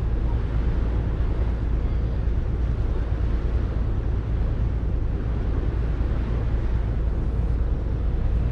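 Steady low rumble of a tour boat under way: its engine drones faintly underneath, with wind buffeting the microphone and water rushing past.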